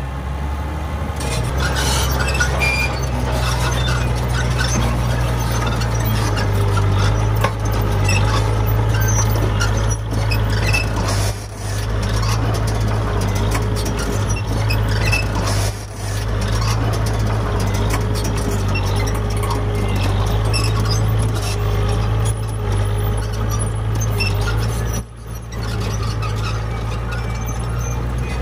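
Komatsu D58P crawler bulldozer working: its diesel engine drones steadily under a clatter of track clanks, with a wavering squeal from about six seconds in. The sound drops off briefly three times.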